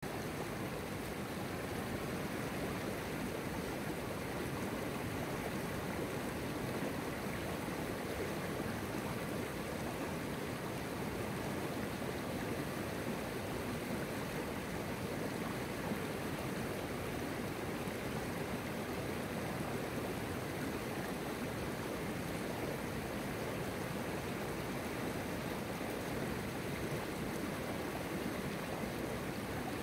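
River water flowing steadily: a constant, even rush with no breaks.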